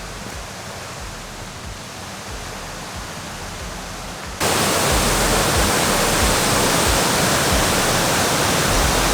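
Rushing roar of a waterfall in heavy rainy-season flow, a steady wash of white water. It is softer and farther off at first, then about four and a half seconds in it jumps abruptly to a much louder, fuller rush, as if suddenly right beside the falls.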